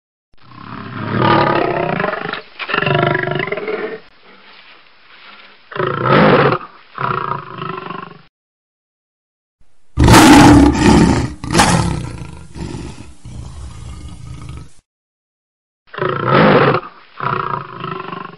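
Lion roaring: a run of separate roars edited together with short silences between, mostly in pairs of loud roars. About ten seconds in comes a louder, brighter recording with several roars trailing off into grunts.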